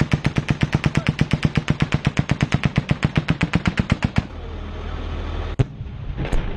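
Machine gun firing one long sustained burst at about ten rounds a second, which stops about four seconds in. A low steady rumble follows, with a single sharp crack about a second and a half later.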